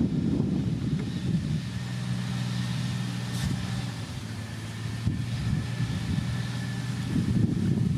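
Diesel engine of heavy road-building machinery running steadily, rougher and louder near the start and again near the end, with a faint high whine in the second half.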